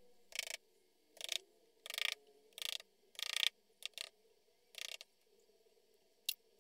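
A small hammer tapping wooden letter patterns down into moulding sand: a series of short, gritty taps, roughly one every three-quarters of a second, with a last tap near the end.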